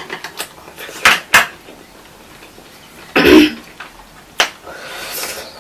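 Eating sounds at a table: chopsticks clicking against ceramic plates several times, and a loud short breathy noise from one of the eaters about three seconds in.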